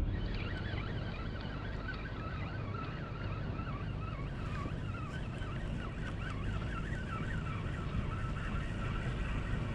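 Spinning reel being cranked, its gears giving a wavering, warbling whir, over a steady low rumble of wind and water.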